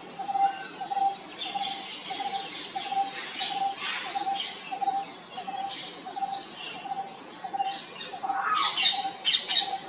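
Birds calling: a steady run of short notes at one pitch, about two a second, with higher chirping from other birds over it that grows loudest near the end.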